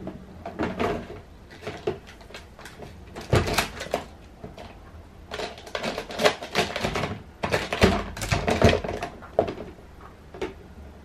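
A poodle pulling a clear plastic storage drawer out of a low shelf and rummaging inside it with his snout: an irregular run of plastic clacks, knocks and rustles in clusters, loudest about three and a half seconds in and again between about five and nine seconds.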